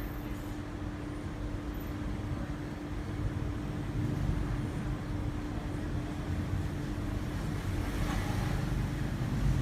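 Low, steady rumble of a vehicle engine running, with a constant hum throughout. No siren wail sounds.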